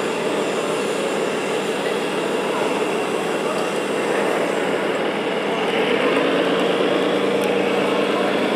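Exhibition-hall crowd chatter and general noise, with an RC Scania truck's electronic diesel engine sound coming up about six seconds in as the model heavy hauler pulls away with its excavator load.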